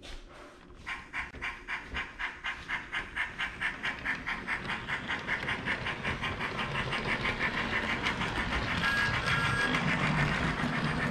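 HO scale model train running along its track, its wheels clicking rhythmically over the rails; the clicks come faster and louder as it gathers speed and blur into a steady rattle.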